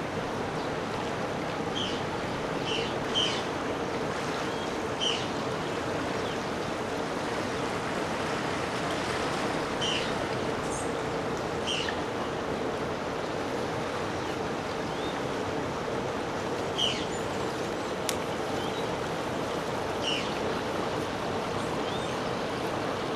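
Steady rushing of a river, with short high chirps now and then over it.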